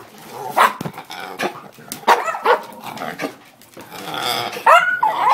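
A dog coughing in a run of short, harsh hacks, two or three to the second, with a brief lull shortly before the end.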